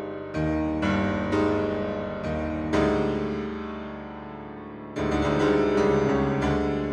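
Keyboard music soundtrack: chords struck one after another and left to ring and fade, with louder chords entering about three seconds in and again near five seconds.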